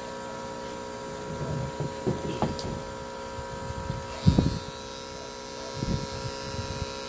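Steady electric hum of a tattoo machine running, with irregular rustles and thumps over it, the loudest about four seconds in.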